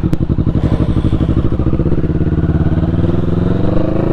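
Motorcycle engine running under way, its firing pulses steady and its pitch rising slowly as the bike accelerates.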